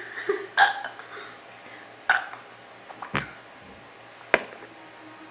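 Several short burps in a burping contest, the loudest and deepest about three seconds in, and a sharp click about a second after it.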